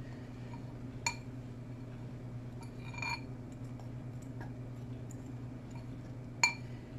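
Spoon clinking against a glass mixing bowl while flour mix is scooped out, three clear clinks with the sharpest near the end, over a steady low hum.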